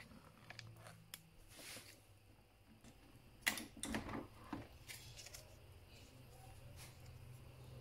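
Plastic clicks and knocks as the brewing-unit lid of a Bosch Tassimo Vivy 2 capsule coffee machine is unlatched and flipped open, the sharpest click about three and a half seconds in, over a faint low hum.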